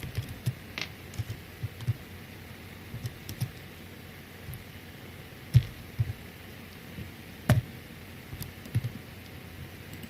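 Scattered soft taps and knocks, with two sharper, louder knocks about five and a half and seven and a half seconds in.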